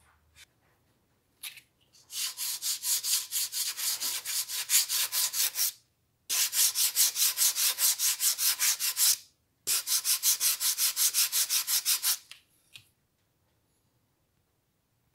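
Hand sanding block with sandpaper rubbed rapidly back and forth over the end of a wooden spirit level, in three bursts of a few seconds each at about five or six strokes a second. The sanding stops about three seconds before the end.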